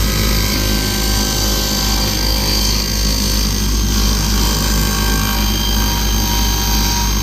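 Woodworking power tool running steadily, its motor hum even throughout.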